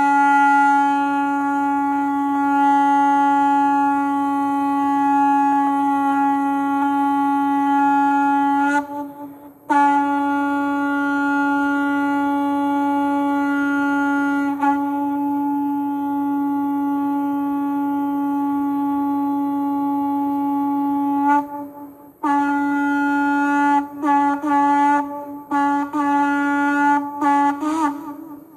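Conch shell (shankh) blown in long, steady single-pitch blasts: one runs to about 9 s, a second lasts about 12 s, and the last is broken by several short gaps and rises a little in pitch before it stops.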